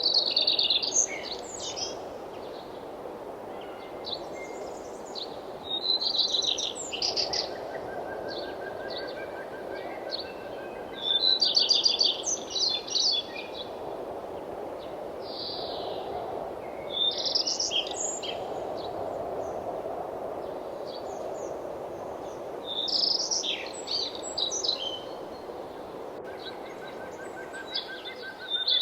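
Songbirds singing, a high rapid phrase about every five to six seconds, with a softer lower trill now and then, over a steady rushing background.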